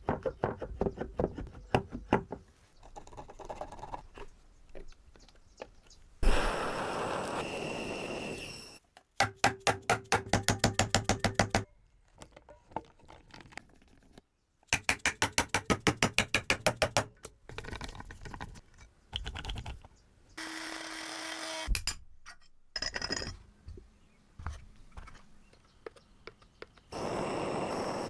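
Workshop metalworking sounds: bursts of rapid, evenly spaced metallic knocks, several a second, alternating with stretches of steady scraping or grinding noise, one with a low hum. There are short silent gaps between the clips.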